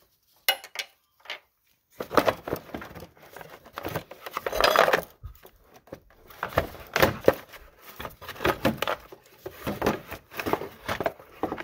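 Battery tub being worked loose and lifted out of a Ford Focus engine bay: a busy run of knocks, clicks, scrapes and rattles starting about two seconds in, with a louder scraping rush about five seconds in.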